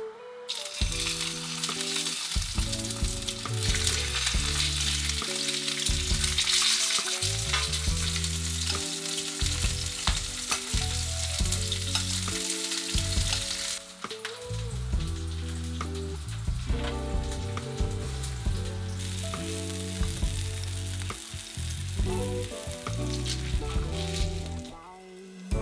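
Sawara (Spanish mackerel) fillets pan-frying in oil in a stainless steel frying pan, a steady sizzle with scattered pops and spits. The sizzle dies away shortly before the end.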